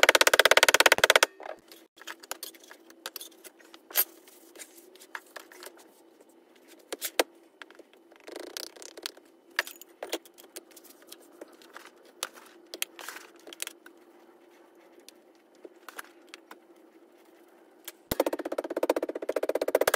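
Packing Petrobond foundry sand into a steel moulding flask: a quick run of mallet blows on the rammed sand in about the first second, then scattered clicks, knocks and scrapes of the metal flask and tools being handled. From about 18 s the sand is rammed again in a quick run of blows.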